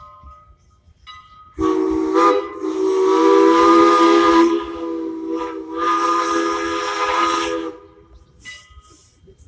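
Steam locomotive whistle, likely on Strasburg's 2-6-0 No. 89, blown in a long blast of about six seconds. Several tones sound at once over a steam hiss, easing in the middle and then swelling again before cutting off. The locomotive's bell rings about once a second before and after the blast.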